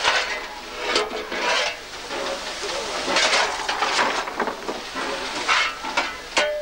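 A fireman shovelling coal into the firebox of the steam locomotive 434.1100: repeated scrapes of the steel shovel into the coal and throws through the open fire door, several in a row.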